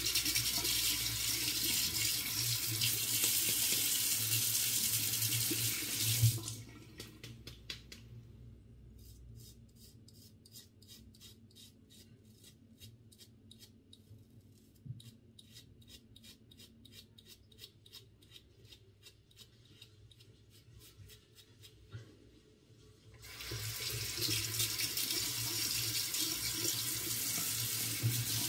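Tap water running into a bathroom sink as a disposable razor clogged with long beard hair is rinsed out. The water stops after about six seconds, followed by a quieter stretch of short, quick strokes of the Derby Samurai 3 Platinum three-blade razor scraping through a week's stubble, about three a second. The tap comes on again for a second rinse about 23 seconds in.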